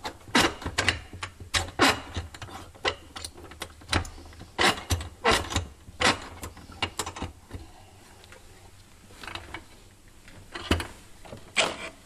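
Metal tool work at a bench vise: a steel rod being clamped and shifted in the jaws, giving irregular short metallic clicks and scrapes, several a second at first and only a few in the second half.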